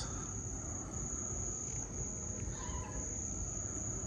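Night insects trilling in one steady, unbroken high-pitched chorus, with a low rumble underneath.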